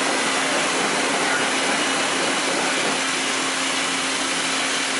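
Mitsui Seiki HJ63A CNC horizontal machining center running with coolant spraying onto the pallet: a steady hiss of coolant and machinery over a constant low hum.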